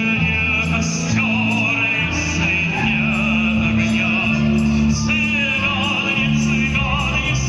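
A man sings with a strong vibrato over accordion accompaniment, with held bass chords that change every second or so.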